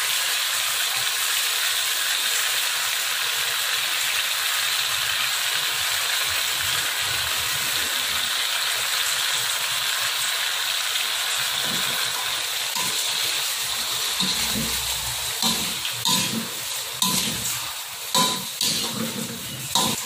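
Stir-fry of pork, shrimp, squid and holy basil sizzling steadily in a hot wok. In the second half a metal spatula scrapes and knocks irregularly against the wok as the food is turned.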